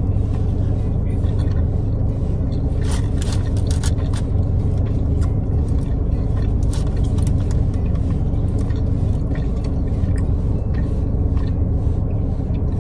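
A steady low rumble throughout, with scattered small clicks and scrapes, a cluster about three to four seconds in.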